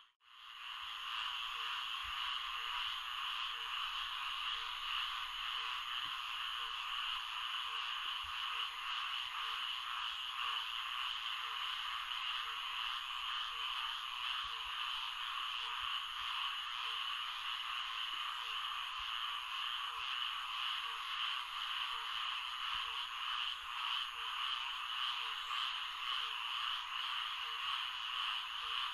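Florida swamp night chorus: a dense, steady din of calling frogs, with a lower call repeating a little more than once a second. It fades in from a brief dropout at the very start.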